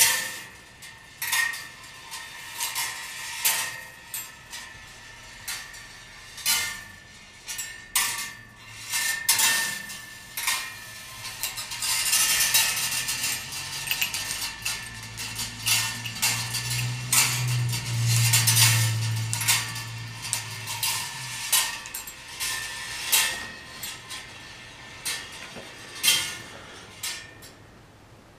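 Wire-track kinetic ball-run sculpture running: balls rolling and dropping along steel wire rails, with frequent sharp clicks and metallic clinks as they strike the track and metal parts. In the middle the rattle thickens and a low steady hum lasts about six seconds.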